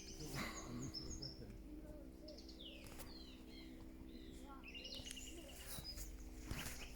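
Small birds chirping in the background, several short calls and a quick trill about five seconds in, with a few faint clicks and a steady low hum underneath.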